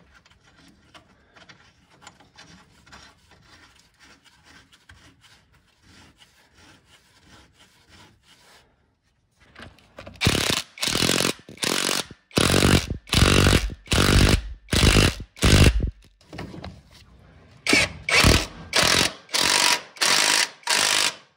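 A hand tool worked in quick repeated strokes during the shock absorber job. Faint rapid clicking comes first, then loud noisy strokes at a little under two a second, in two runs with a short pause about three-quarters of the way through.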